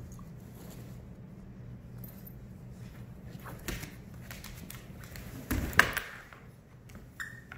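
Two dogs wrestling over a stuffed toy: scuffling, with paws and bodies knocking on a dog bed and a wooden floor. A burst of sharp thumps about five and a half seconds in is the loudest part, over a low steady hum.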